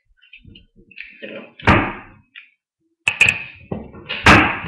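Plastic Lego pieces being handled and knocked: three sharp knocks, about a second apart, with lighter clattering between them.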